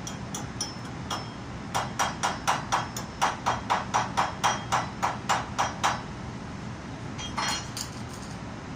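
A small hammer striking a weld on a cast iron flange, about twenty quick metallic strikes in four seconds. A few lighter knocks follow near the end.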